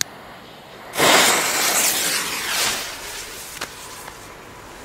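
A jet-flame torch lighter hissing as it lights the green fuse of a Cobra 3 firecracker, starting suddenly about a second in and lasting nearly two seconds before fading.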